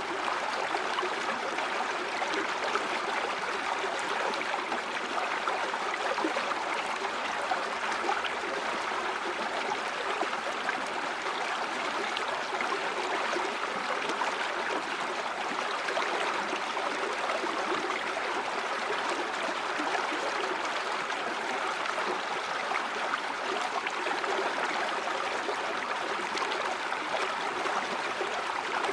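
River water flowing steadily over rocks, a constant rushing and babbling with no change.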